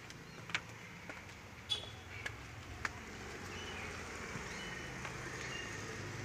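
Footsteps going down a staircase: a few sharp taps in the first three seconds over a faint steady background hum.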